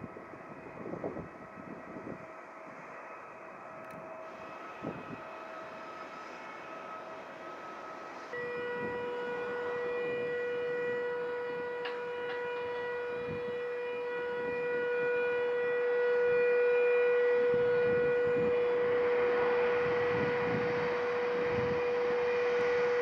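Jet airliner engines whining with a high steady tone and overtones. About eight seconds in, the sound changes abruptly to a stronger, steadier whine, and a rushing jet noise swells over the second half.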